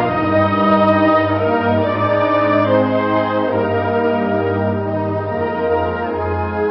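Brass-led music playing slow, held chords over a steady low bass.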